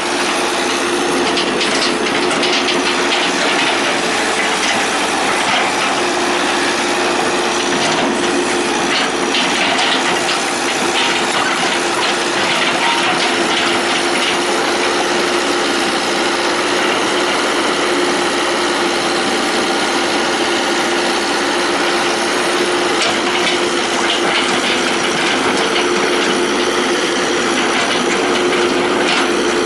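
Hitachi EX120 hydraulic excavator's diesel engine running steadily under working load, with a constant hum and scattered scraping and clattering from the digging.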